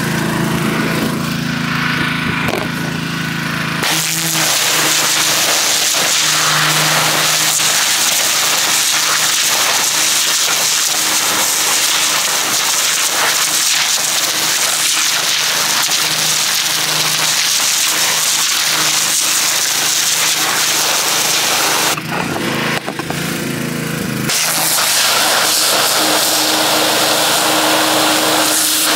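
Pressure washer blasting its jet into a pile of dirty snow: a loud, steady hissing spray over the even hum of its motor. The spray starts about four seconds in, cuts out for about two seconds a little past twenty seconds, then starts again.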